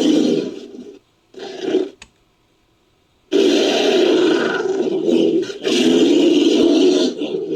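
Made-up Bigfoot roar sound effect, layered from recorded animal roars. A roar trails off in the first second, a short roar follows, then after about a second and a half of silence come two long roars, one straight after the other.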